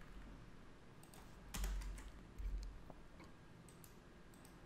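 Faint computer keyboard typing: scattered single keystrokes, with the strongest, carrying a soft thud, about one and a half and two and a half seconds in.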